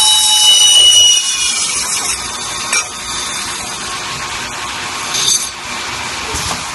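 Tube-cutting machine cutting a spinning metal tube: the cutting tool gives a high, steady multi-tone squeal that fades out over the first two seconds, then a steady hiss of cutting goes on, with two short louder scrapes about three and five seconds in.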